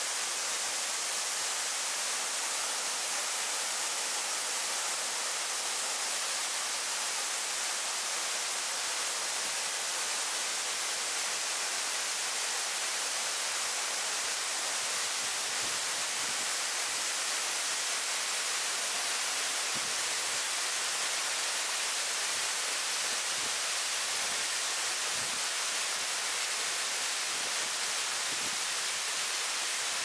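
Rushing mountain water: a steady, even hiss with no breaks.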